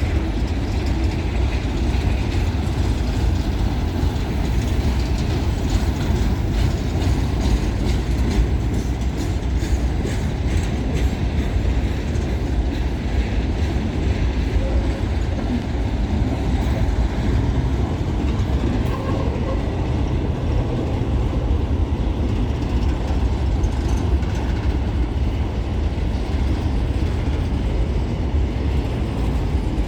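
A freight train's empty grain hopper wagons rolling past on curved track: steady, loud wheel-on-rail noise.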